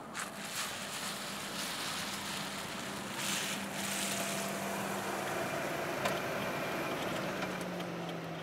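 Volvo XC40 T5 Twin Engine plug-in hybrid SUV driving up on a wet, slushy road, its tyres hissing, louder around three to four seconds in as it comes close, with a steady low hum underneath.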